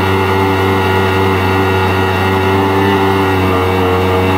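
Yamaha SUV 1200 personal watercraft's rebuilt three-cylinder two-stroke engine running steadily on its first load test after a carburetor rebuild, with the jet pump churning water behind the hull.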